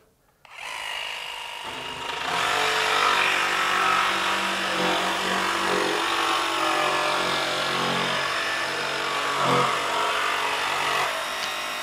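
Makita XVJ01Z 18-volt brushless barrel-grip jigsaw starting up about half a second in and cutting through plywood with its orbital action switched on: a steady motor whine with blade chatter. It gets louder about two seconds in as the blade bites into the cut.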